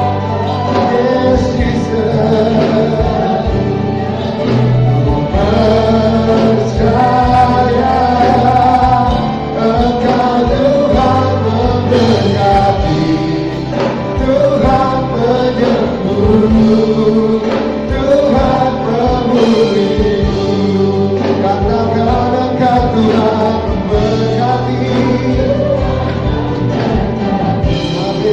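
Choir singing a gospel worship song over band accompaniment with bass and a steady beat.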